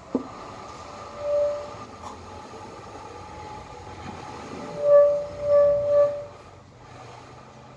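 A horn tooting in short pitched hoots: one toot, then three quick toots a few seconds later, over a steady background hum. There is a click just at the start.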